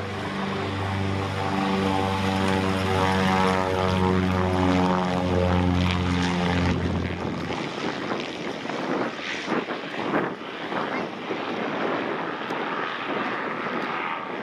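Cessna O-2 Skymaster's two piston engines, one pulling and one pushing, at full power on the takeoff roll: a steady propeller drone with a strong low hum that passes by about halfway through, then turns rougher and slowly fades as the plane lifts off and climbs away.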